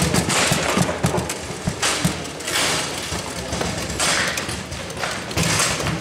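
Table football in play: the ball knocking against the player figures and the table walls, and the rods clacking, in quick irregular knocks with a louder flurry in the first two seconds.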